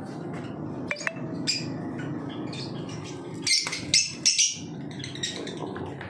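Caged lovebirds chirping in short, sharp, high calls, loudest in a cluster about three and a half to four and a half seconds in, over a steady low background noise, with a couple of clicks about a second in.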